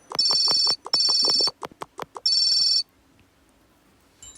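Electronic beeping: three held high-pitched tones of about half a second each, separated by a quick run of sharp clicks like rapid tapping, stopping about three seconds in.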